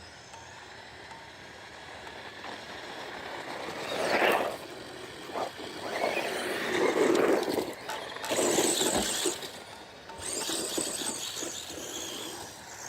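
Small electric RC car motors whining and rising in pitch as they accelerate, with several louder noisy surges as the cars run past.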